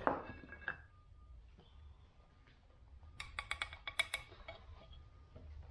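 Quiet handling noise: a sharp click at the start, then a quick run of sharp clicks and taps about three to four seconds in.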